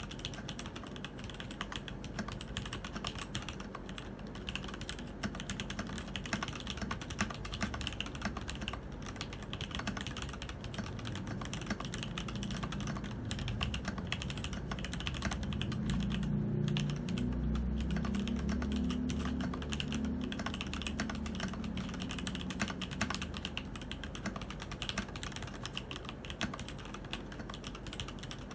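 Continuous typing on a Keydous NJ80 mechanical keyboard with TTC ACE switches: a dense, steady stream of key clicks. For a few seconds around the middle, a deeper low sound joins the typing and it gets slightly louder.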